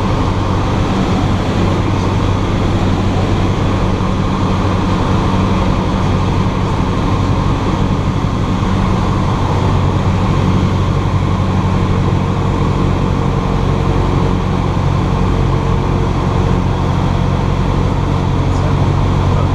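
Cessna 172's piston engine and propeller droning steadily in flight.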